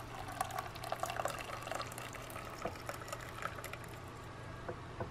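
Hot bone broth poured from a metal pan into an enamel mug, the stream splashing as the mug fills, then thinning to a trickle with a few drips near the end.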